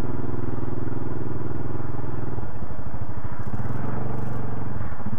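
ATV engine running steadily under throttle while crawling over rocks through a shallow creek. The throttle eases off about halfway, then the revs rise again.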